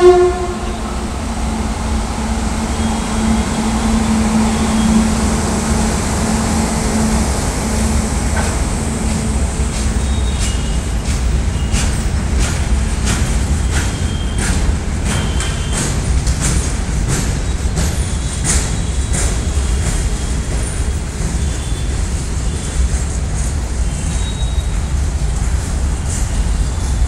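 Freight train passing close by: an electric locomotive goes by with a steady low rumble and a hum that fades after the first several seconds. A long rake of covered box wagons then rolls past, with many clicks and a few short squeaks in the middle stretch.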